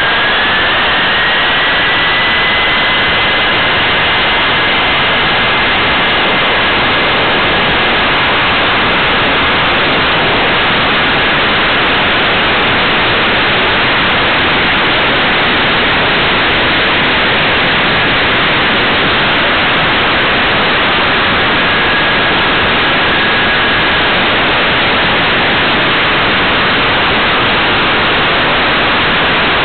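Radio-controlled model airplane recorded on board: the motor's whine rises in pitch over the first two seconds as it throttles up for takeoff, then holds steady. Loud rushing wind noise on the small onboard camera's microphone covers everything and stays after the whine fades.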